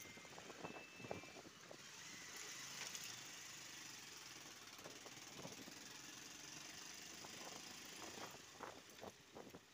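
Quiet, steady wind and road noise of a motorcycle ride, with a few faint knocks.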